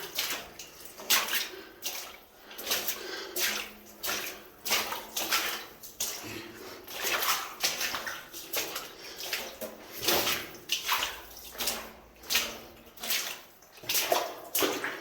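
Footsteps squelching and splashing through sloppy mud and shallow water in a mine passage, a steady walking rhythm of one or two steps a second.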